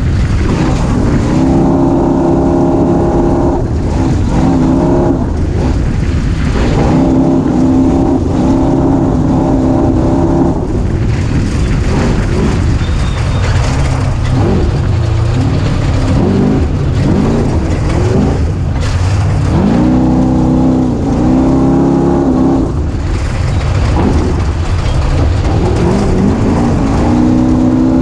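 Off-road race vehicle's engine running hard under a steady low rumble. Its revs climb, hold and drop again several times as the throttle is worked.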